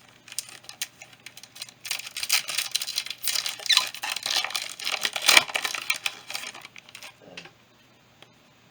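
Yu-Gi-Oh booster pack and cards being handled: dense rustling and crinkling of a foil pack wrapper, loudest through the middle and stopping about seven and a half seconds in.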